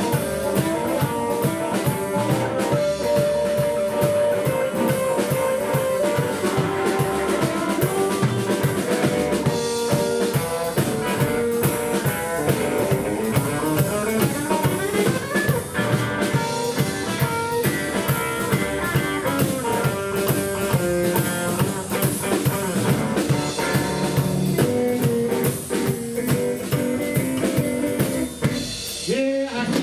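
Live blues band playing an instrumental break: harmonica playing the lead over hollow-body electric guitar, upright double bass and a drum kit keeping a steady beat. The band drops out briefly just before the end.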